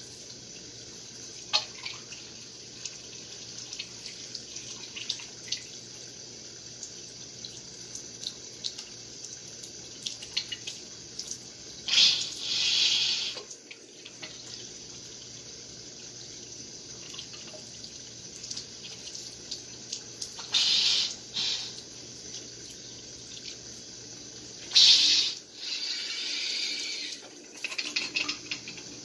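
Kitchen faucet running into a sink while a plastic sprinkler drive unit is flushed under it, with small clicks of handling. Three times the water rushes and splashes louder for a second or two as it is forced through the unit to clear the clog of dirt.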